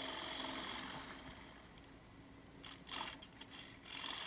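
Wood lathe spinning a dry black walnut bowl while a bowl gouge takes light cuts at the bottom of the bowl. The sound is faint, with a few short louder scrapes of the tool about three and four seconds in.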